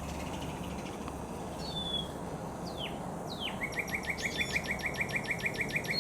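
A songbird singing: a few downward-slurred whistles, then from about three and a half seconds in a fast run of short rising notes, about six a second, over a steady low background rumble.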